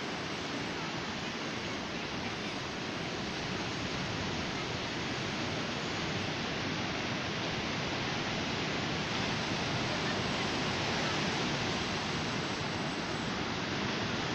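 Sea surf breaking and washing up the beach: a steady rush of white water, swelling slightly louder in the second half.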